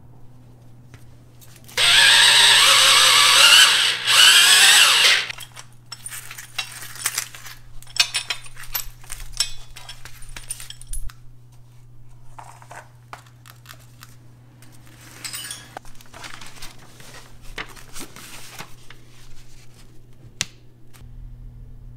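A handheld power tool runs in two bursts, about two seconds and then about one second, its pitch wavering. Light clinks and rattles of metal strut parts being handled follow.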